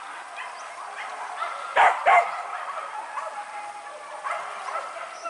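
Hunting dogs barking: two loud, sharp barks close together about two seconds in, with fainter barks later.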